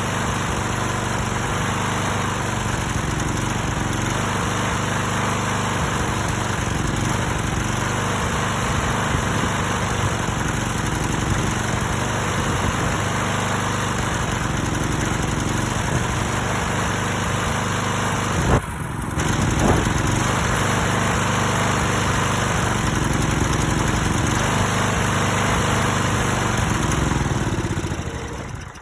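Briggs & Stratton engine on a Stiga Pro 48 lawn mower running with a misfire, even after a new spark plug, air filter and tank and a rebuilt carburettor. About two-thirds of the way through it stumbles briefly, and near the end it slows and stops.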